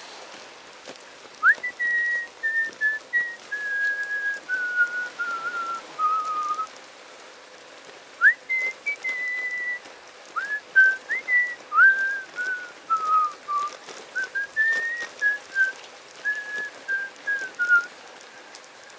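A person whistling a tune: clear single notes held briefly and mostly stepping downward, in several phrases with short breaks.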